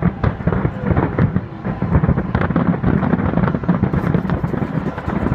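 Fireworks display: aerial shells bursting in quick succession, a dense run of overlapping bangs and crackling.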